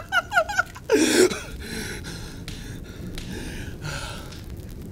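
A man's rhythmic laughter trails off within the first second and ends in a sharp, breathy gasp. After that only a steady background hiss remains.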